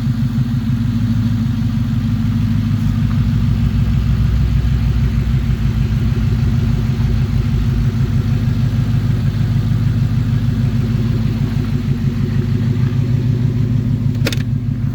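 Ford Coyote 5.0 V8 idling steadily at about 750 rpm, warmed up, after its cam phasers were reassembled: it sounds pretty much normal, without the timing chain chirp and rattle. A single sharp click comes near the end.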